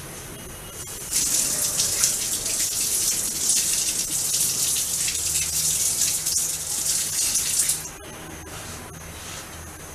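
A steady, loud hissing rush that starts abruptly about a second in and cuts off just before the eight-second mark.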